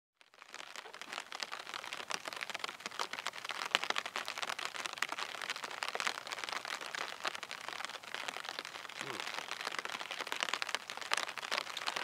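Rain pattering steadily, mixed with close rustling of wet long grass and clothing.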